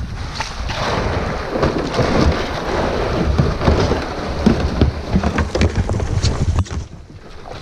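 Kayak being paddled on a river: water splashing and dripping from the paddle strokes, with many small splashes and knocks, under heavy wind rumble on the microphone. It eases a little near the end.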